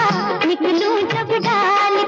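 Hindi song playing as background music, its melody wavering in ornamented turns over a full accompaniment.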